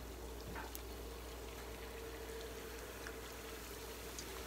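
Panko-battered mozzarella corn dogs deep-frying in hot vegetable oil in a cast iron skillet: a steady bubbling sizzle with an occasional faint pop.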